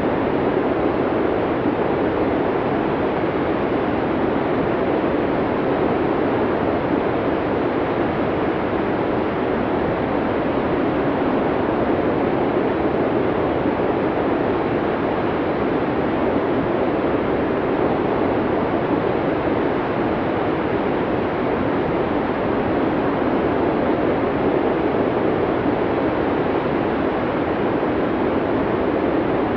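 Snowstorm wind blowing steadily, a constant even rush with no gusts, breaks or separate sounds.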